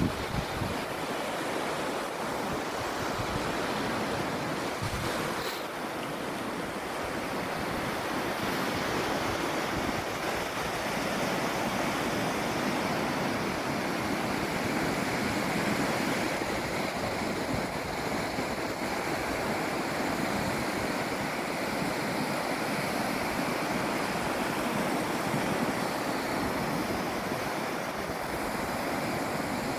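Small waves breaking and washing up a shallow sandy beach: a steady rush of surf that swells and eases slightly, with no single loud crash.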